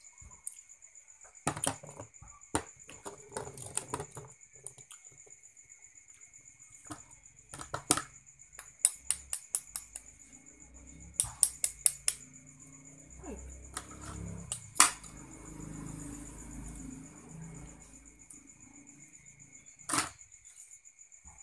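Metal spoon tapping and cracking the shell of a boiled balut duck egg: a series of sharp taps and clicks, some in quick runs, then the cracked shell being picked off. A steady high-pitched tone runs behind.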